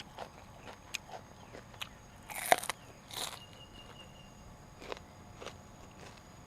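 Eating sounds close to the microphone: crunchy bites into raw vegetables and chewing. Small scattered clicks, with two louder crunches about two and a half and three seconds in.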